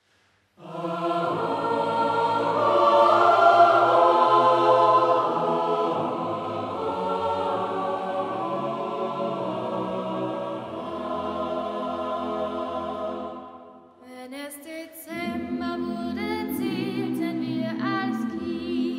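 Folk song choir singing a Christmas song in several voices. It starts after a moment of silence with long held chords, pauses briefly about two thirds of the way through, then begins the next phrase.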